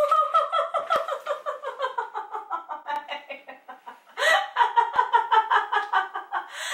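A woman laughing hard in rapid, high-pitched pulses, in two long bouts with a short break for breath between them: nervous laughter after a fright.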